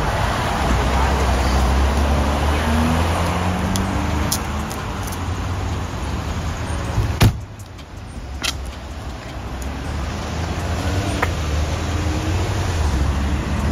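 Steady street traffic noise. About seven seconds in, a car door slams shut once, the loudest sound, and the background is briefly quieter after it.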